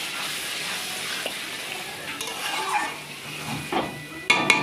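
Marinated chicken sizzling in hot masala in a black iron kadai while a metal spatula stirs and scrapes it. A few sharp metallic knocks come near the end.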